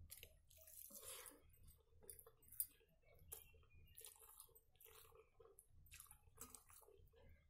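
Quiet, irregular chewing of a mouthful of rice and dried-fish curry eaten by hand, with soft sounds of fingers mixing rice on a steel plate and one sharper click about two and a half seconds in.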